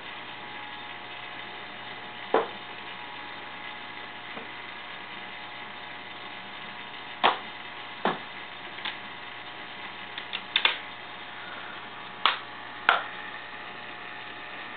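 Steady low hum and hiss with about ten short, sharp clicks scattered through it, several of them bunched together about ten seconds in.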